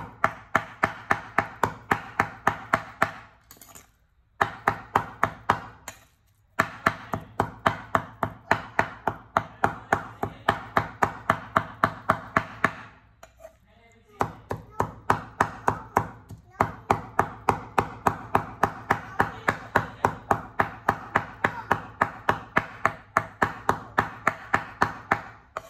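A steel cleaver chopping raw meat into mince on a wooden cutting board, in fast even strokes of about four to five a second, each a sharp knock of blade on wood. The chopping stops briefly three times, the longest pause a little after the middle.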